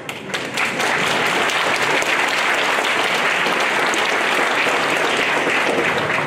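Audience applauding: a dense, steady clatter of many hands clapping that builds up within the first second and then holds.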